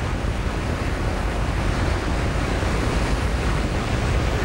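Steady rushing noise of strong wind from a waterspout, heaviest at the low end, with wind noise on the microphone.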